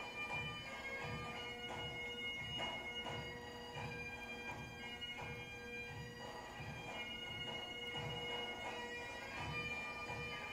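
Bagpipe music: a pipe melody moving over a steady held drone, with a low beat pulsing under it about twice a second.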